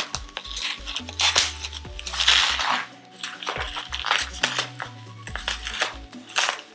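Bubble wrap being cut with scissors and pulled open, crinkling in short bursts with scattered clicks, over soft background music.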